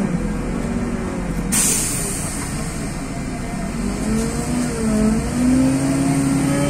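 Tezeller TezAuto LF1200 city bus engine running as heard from inside the passenger cabin, its pitch wandering and then climbing as the bus pulls along. A sudden hiss of compressed air starts about a second and a half in and carries on underneath.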